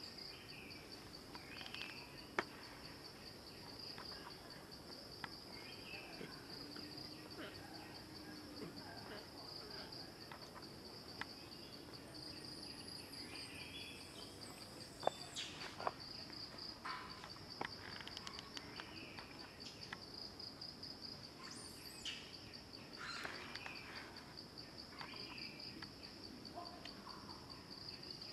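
Steady high-pitched insect chorus with a fast, even pulsing trill, broken by a few sharp clicks and some brief faint chirps.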